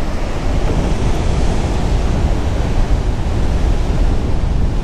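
Steady wind noise rumbling over the microphone, mixed with the wash of breaking surf.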